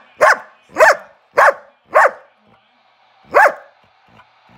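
A dog barking in short, sharp barks, each falling in pitch: four in quick succession about half a second apart, then a fifth after a pause of over a second. These are demand barks for treats.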